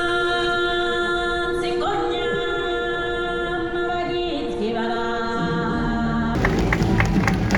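Music: voices singing long held notes in harmony, a cappella, with light percussion coming in near the end.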